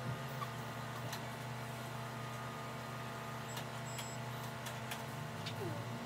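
Steady low hum of running endoscopy equipment, with a few faint clicks.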